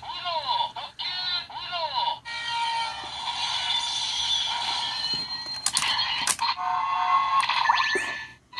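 Tinny electronic sound effects and a short music jingle from a Ressha Sentai ToQger toy's small speaker, played when a Ressha train is used with it. Sweeping chirps at first, then a steady jingle, two clicks a little past halfway, and more tones near the end.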